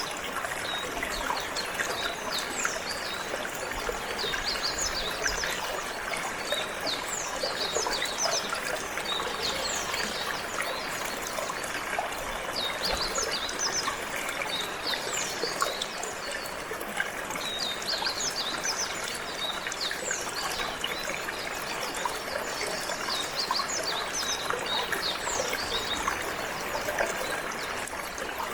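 Water running steadily like a small stream, with a canary singing quick, high chirps and trills all through.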